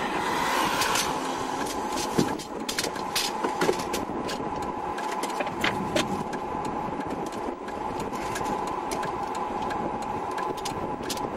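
Vehicle engine running, heard from inside the cab: a steady hum with many scattered sharp clicks and ticks.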